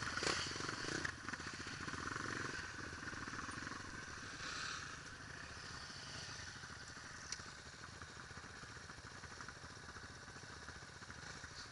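Dirt bike engine idling with an even, rapid beat, growing gradually fainter. A few clicks and rattles come in the first second.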